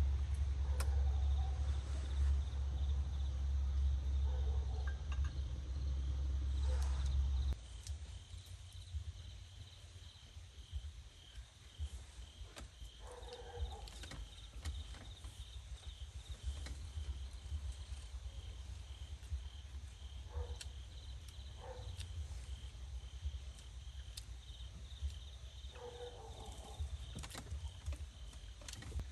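Insects chirping in a steady, evenly pulsing high trill. A low rumble under it cuts off suddenly about seven seconds in, and a few short, faint knocks and calls come through afterwards.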